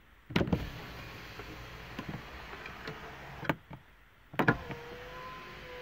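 Electric window of a Mercedes-Benz A-Class (W168) being run: a click, about three seconds of steady motor hum, a few clicks, then the motor running again with a faint steady whine.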